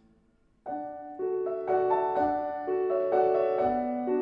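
Music: after a brief hush, soft piano notes begin about half a second in, a new note or chord roughly every half second.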